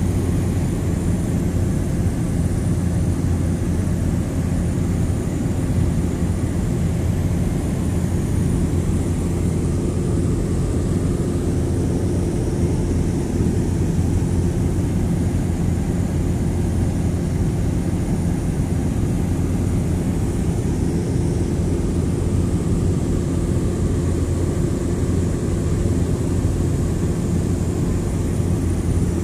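Steady drone of an airliner's engines heard inside the cabin in flight: a constant low hum of several steady tones over airflow noise, unchanging throughout.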